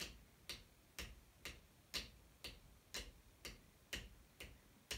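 A pair of wooden drumsticks tapping a steady, even quaver rhythm, about two taps a second.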